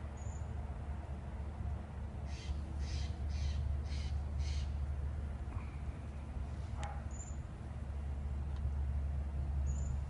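A crow caws five times in quick succession, about two caws a second, over a steady low rumble. A single sharp click follows a couple of seconds later.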